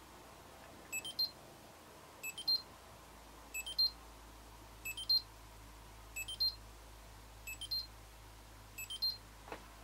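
Futaba T14SG radio transmitter beeping in link mode while it binds to the receiver: a short rising run of three high beeps, repeating about every 1.3 seconds.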